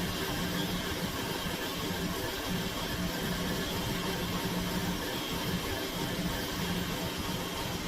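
A steady machine hum with a constant hiss over it, running evenly throughout.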